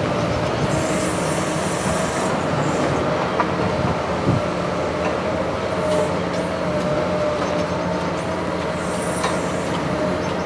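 Liebherr 944 crawler excavator running steadily on a demolition job, a constant engine drone with a high whine held over it. Two stretches of high hiss come about a second in and near the end, and a single knock about four seconds in.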